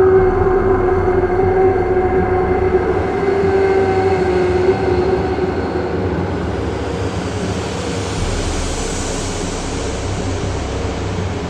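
Eerie ambient drone: a low rumble under a held tone that fades out about halfway through, with a hissing wash swelling near the end.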